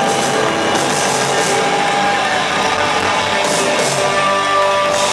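A rock band playing live new-wave music, with sustained keyboard and guitar notes over drums at a steady loud level.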